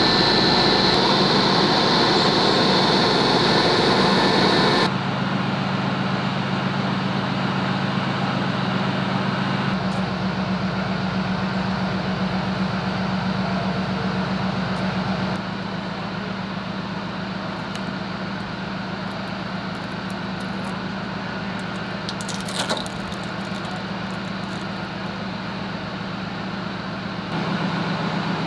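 Heavy armoured-vehicle diesel engines running steadily at idle, a low hum whose pitch and loudness shift from shot to shot. A loud high whine sits over the hum for the first few seconds, and there is a brief clinking about three quarters of the way through.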